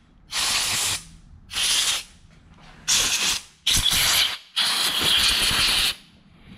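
Compressed-air blow gun firing five short blasts of hissing air, the last the longest, blowing loose paint flakes out of a freshly deburred bolt hole in a suspension strut.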